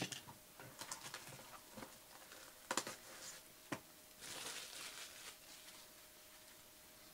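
Faint handling noise from a trading card box being opened: light rustling and scattered clicks, two sharper clicks in the middle, and a longer rustle of packaging about four seconds in.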